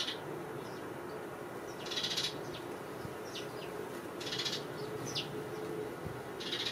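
A flock of house sparrows chirping and chattering, with three short buzzy bursts of chatter and a few quick downward chirps in between.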